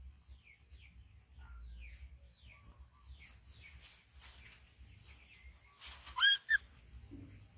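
A bird repeats short, falling chirps about twice a second for the first four seconds or so. A little after six seconds a young animal gives a loud, high squeal twice in quick succession.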